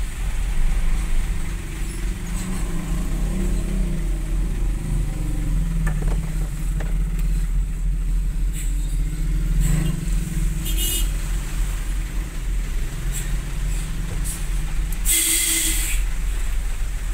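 Engine of a large vehicle running steadily, heard from inside its cab while it creeps through traffic. Near the end a loud hiss lasts about a second.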